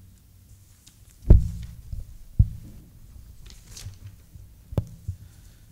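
Papers being handled on a table close to a table microphone: three dull thumps, the first and loudest about a second in, another about a second later and a third near the end, with a short paper rustle in between.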